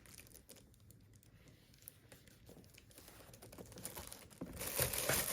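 Handling noise from a basketball shoe being turned over in the hands: faint scattered clicks and taps, then a louder rustle near the end.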